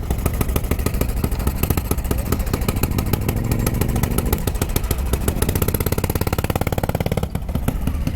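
Motorcycle engine running with a fast, even firing beat, dipping briefly a little after seven seconds in.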